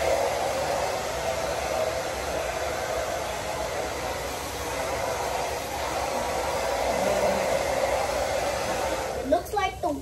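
Handheld hair dryer blowing on curly hair with a steady rushing whoosh, cutting off about nine seconds in.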